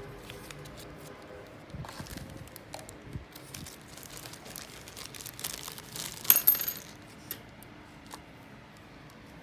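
Handling noise: scattered clicks and light rustling, with a cluster of sharp, briefly ringing clinks of small hard objects a little past the middle.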